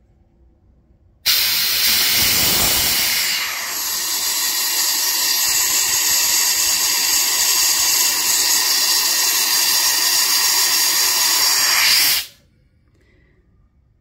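Compressed air at about 100 psi rushing through a Stedlin quiet plug, Milton universal coupler and flowmeter at about 29.5 CFM: a loud steady hiss. It starts suddenly about a second in as the shut-off ball valve is opened, dips briefly a couple of seconds later, and cuts off sharply near the end as the valve is closed.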